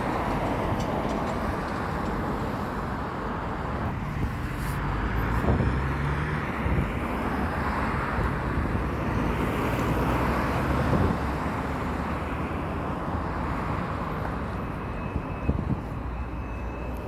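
Steady outdoor noise, a continuous rumble and hiss, with a few faint short knocks.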